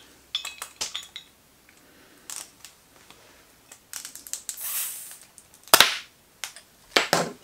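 Lighter used as a bottle opener, prying the crown cap off a glass bottle of carbonated cucumber drink. A few clicks of metal on glass, a short hiss, then a sharp pop as the cap comes off about six seconds in, followed by a couple of clinks.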